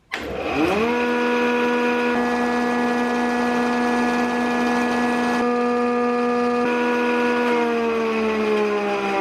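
JET JPM-13 planer/molder switched on: the motor and cutterhead spin up to speed within about a second and run with a steady whine. About seven and a half seconds in the whine begins to fall slowly in pitch as the machine coasts down.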